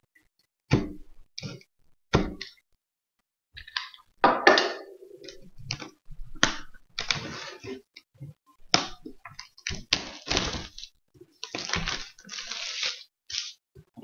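Hands tearing open the plastic seal of a cardboard box: short crinkling and ripping bursts, mixed with irregular knocks and thuds as the box is handled against the table.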